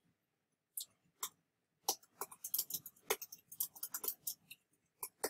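Typing on a computer keyboard: two separate key clicks about a second in, then a quick, irregular run of key clicks.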